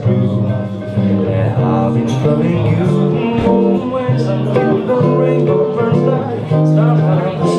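Acoustic guitar playing with a man singing.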